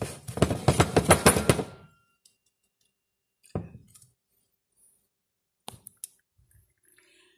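Hands slapping and tapping a metal tube cake pan filled with batter: a fast run of sharp knocks for about two seconds, then two single knocks a couple of seconds apart.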